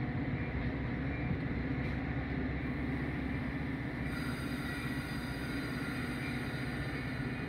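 Metra diesel commuter train standing at the platform, its engines and onboard equipment giving a steady low rumble. A faint hiss comes in about four seconds in.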